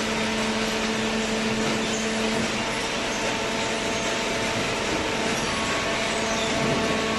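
Hydraulic baler running: a steady machine hum with a constant hiss of noise. A lower tone in the hum drops out about a third of the way through.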